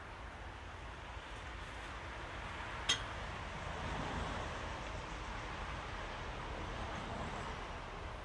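Honeybee colony humming as the hive is opened, swelling slightly about four seconds in, with a single sharp click about three seconds in.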